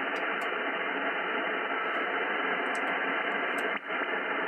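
Hiss of shortwave band noise heard through an amateur radio receiver in single-sideband (SSB) mode on the 18 MHz band, held to a narrow voice-width passband, with a brief dropout near the end.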